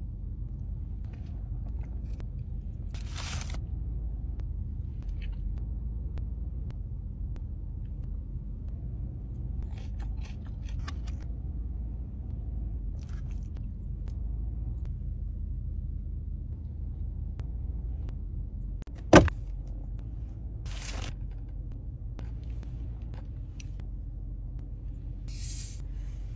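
Steady low rumble of a car cabin with the engine running, with a few brief crisp rustling noises and one sharp click about three-quarters of the way through.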